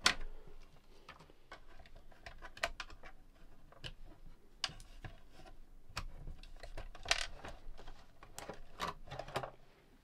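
Quiet handling noises from a radio cassette recorder being taken apart: scattered light clicks and taps of wiring connectors and the plastic chassis, at irregular moments.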